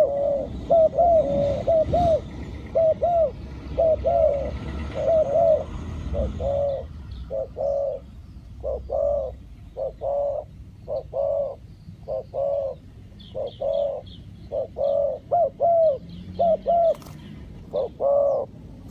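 Spotted dove cooing over and over, a long run of short, arched coos in quick groups with brief pauses between them. A small bird chirps faintly and high in the second half.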